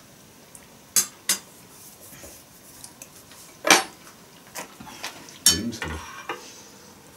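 Spoons and forks clinking and knocking against metal bowls and plates while eating, a few separate clinks, the loudest about halfway through.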